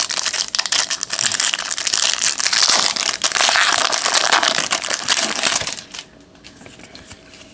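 Wrapper of a baseball card pack being torn open and crinkled in the hands, a dense crackling rustle that stops about six seconds in, followed by a few faint clicks of cards being handled.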